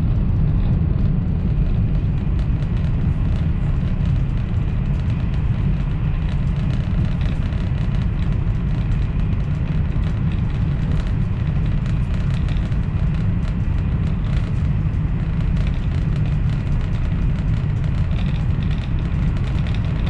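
Italo AGV high-speed train running at speed through a tunnel, heard from inside the passenger cabin: a steady low rumble with a fainter hiss above it.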